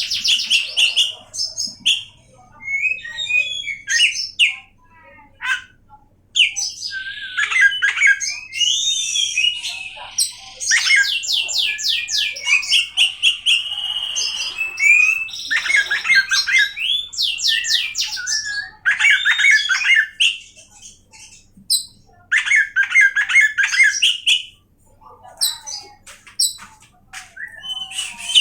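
Oriental magpie-robin (kacer) singing a long, varied song of whistled glides, runs of rapid repeated notes and harsh, scratchy phrases, broken by short pauses.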